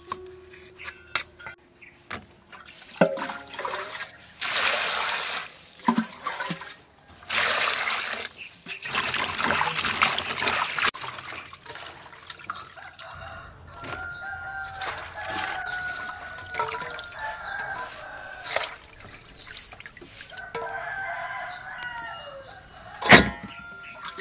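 A few light cleaver taps on a wooden chopping board, then hands splashing and sloshing cut green beans in water in a metal bowl, in several long bursts. In the second half a rooster crows more faintly, and a single sharp knock near the end is the loudest sound.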